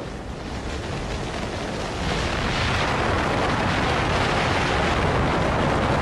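Strong wind buffeting the microphone in a moving car's slipstream: a steady rush of noise with a heavy low rumble, growing a little louder about two seconds in.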